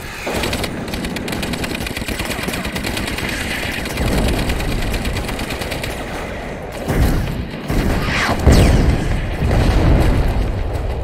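Battle soundtrack: sustained rapid machine-gun fire mixed with rifle shots, then two heavy explosions about seven seconds in and a second and a half later, the second just after a falling whistle.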